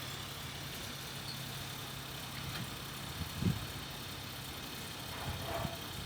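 Suzuki Splash engine running at idle, a steady low hum, with a single dull knock about halfway through and a few fainter small knocks near the end.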